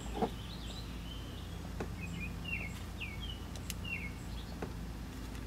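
Faint bird chirps, a short run of quick gliding notes in the middle, over a steady low background hum, with a few light clicks and taps.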